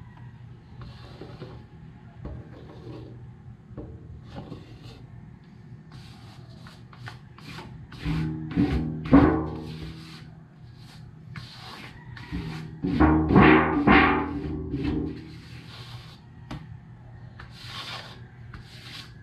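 Spatula scraping cake batter out of a mixing bowl into a baking pan: a string of short scraping strokes, with two louder stretches about eight and thirteen seconds in where the bowl rings with a low tone.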